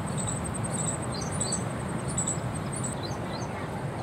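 Outdoor ambience: birds chirping in short high-pitched calls and a fast, even trill over a steady low rush of background noise.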